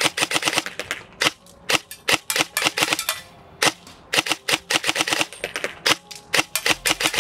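G&G SSG-1 USR electric airsoft rifle (AEG) firing rapid semi-automatic shots, each trigger pull a sharp crack from the gearbox. The shots come in quick uneven clusters of several a second with brief gaps between them.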